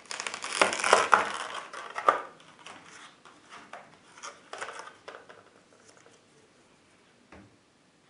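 Stiff clear plastic clamshell blister pack being pried open and pulled apart: loud crackling and crinkling of the plastic for about two seconds, then lighter crinkles and clicks that die away, with one small click near the end.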